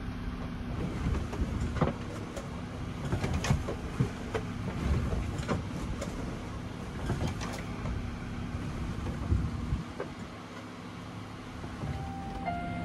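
Inside a sailboat's cabin under way: a steady low drone with scattered creaks and knocks of the hull and stowed gear as the boat rolls. Piano notes come in near the end.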